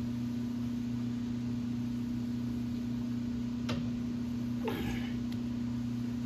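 Steady electrical hum from the idle lathe, with a sharp click about three and a half seconds in and a short metallic rasp a second later as the lathe's speed gears are shifted and the chuck is turned by hand to mesh them.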